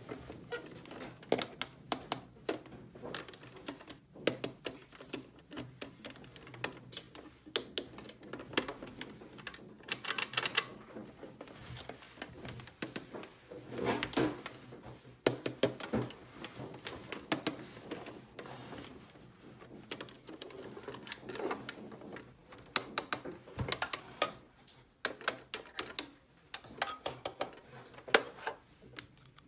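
Small hard plastic toy pieces being handled and set down: an irregular, dense run of light clicks and taps, with busier clusters about four, ten, fourteen and twenty-six seconds in.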